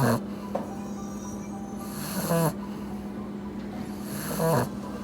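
English bulldog puppy snoring loudly in its sleep, three snores about two seconds apart, each with a hissing, rattling edge.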